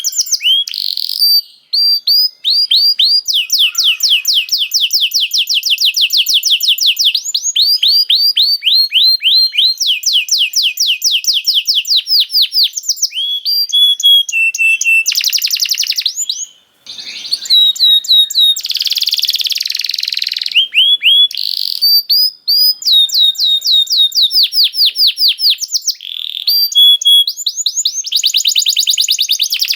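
Domestic canary singing a long, near-continuous song of rapid rolling trills: fast runs of repeated short notes that change pattern every second or two, broken only by a couple of very brief pauses.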